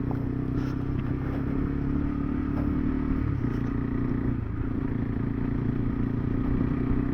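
KTM 390 Adventure's single-cylinder engine running at a steady pace while riding, its note dipping slightly midway, with a few light clicks and rattles.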